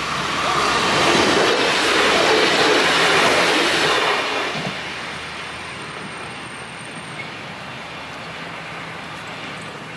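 Regional passenger train passing close by at speed. Its noise swells in the first second, stays loud, and dies away from about four seconds in as it recedes.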